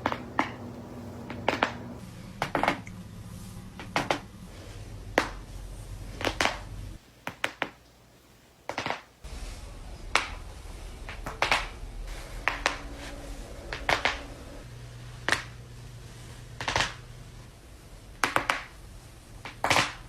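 Joints being cracked, with sharp single pops about every second or so, some fifteen in all, over a low steady hum.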